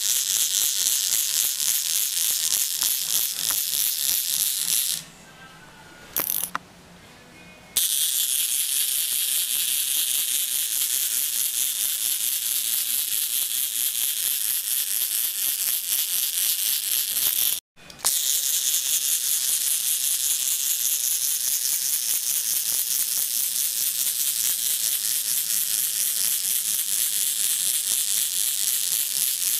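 Wind-up clockwork motor of a paper-clip hexapod walker running, a fast, dense mechanical whirring rattle from its gears and wire legs on a wooden table. The rattle stops for two or three seconds about five seconds in and breaks off for a moment past halfway, then carries on.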